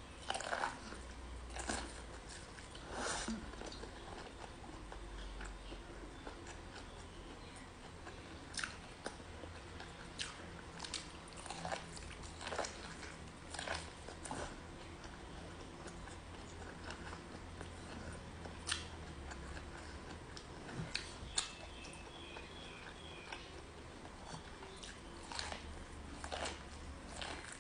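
A person biting and chewing white-and-purple corn on the cob close to the microphone: irregular short crunches as kernels are bitten off the cob, with quieter chewing between them, over a low steady hum.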